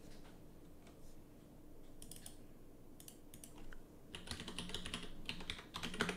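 Typing on a computer keyboard: a few scattered clicks, then a fast run of keystrokes from about four seconds in as a login password is entered.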